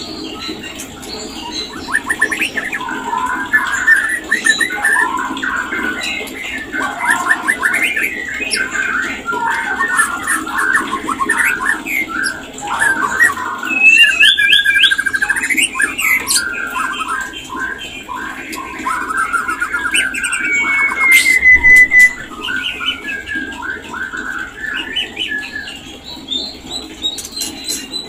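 White-rumped shamas calling: a busy, unbroken run of chirps, rattling phrases and whistles, with one long, slightly falling whistle about three-quarters of the way through. These are the mating calls of shamas in breeding condition, over a steady low hum.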